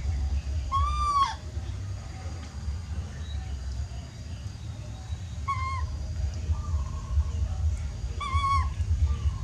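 Baby macaque crying: short, high, arched calls, three clear ones about a second in, past the middle and near the end, with fainter ones between, over a steady low rumble.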